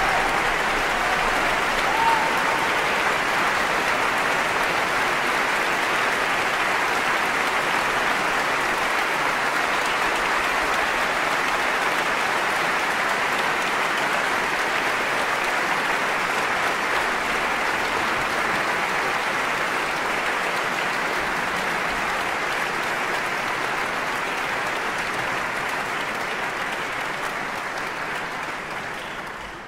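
Concert-hall audience applauding steadily, a sustained ovation that tapers off near the end.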